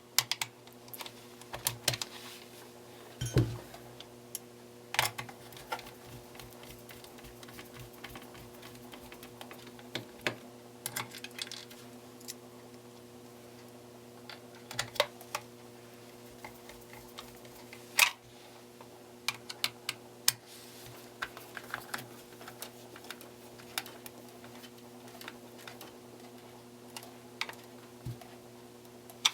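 Small screws being driven by hand with a screwdriver into a plastic cordless-phone handset case, with irregular light clicks and taps of plastic parts being handled. A faint steady hum runs underneath.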